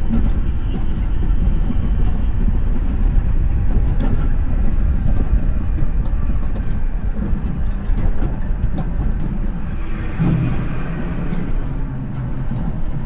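Wiegand coaster kart running along its rail track, heard from on board: a continuous loud rumble and rattle of the wheels on the track, with a few sharper clicks.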